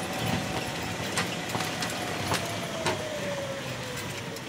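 Golf cart driving up a hill: a steady motor whine that sags slightly in pitch toward the end, over a low rumble from the tyres, with a few sharp rattling clicks along the way.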